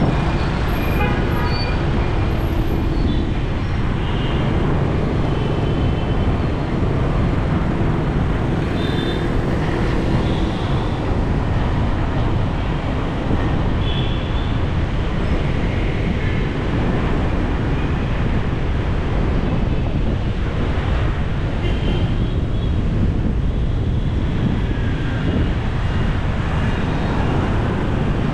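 Busy city street traffic heard from a vehicle driving through it: a steady rumble of engines, tyres and wind, with a few faint short high tones scattered through it.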